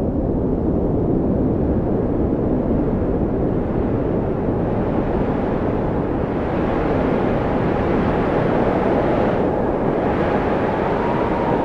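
Blizzard wind blowing hard and steadily, a dense low rush, with a faint whistling howl that rises and falls in the last few seconds.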